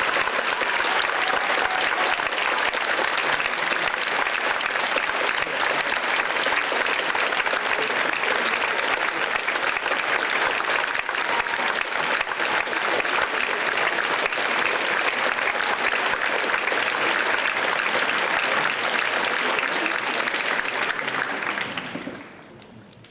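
Theatre audience applauding steadily at the end of a ballet solo, dying away near the end.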